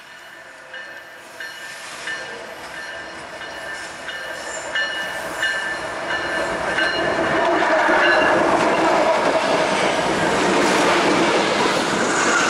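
Union Pacific diesel locomotives approaching and passing close by. Engine and wheel noise grows steadily louder over about eight seconds, then holds as the locomotives go by. Through the approach a bell rings about one and a half times a second, the grade-crossing bell.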